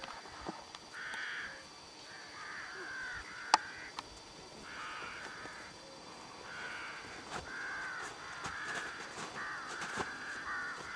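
A bird calling over and over, a run of short harsh calls, with a sharp click about three and a half seconds in.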